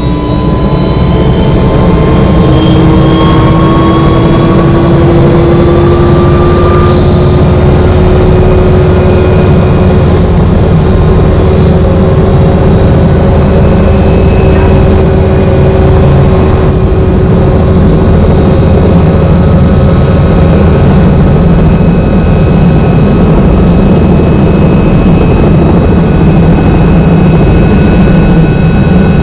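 Helicopter turbine engine and rotor running loud and steady, with a high whine that rises slightly in pitch over the first several seconds and then holds.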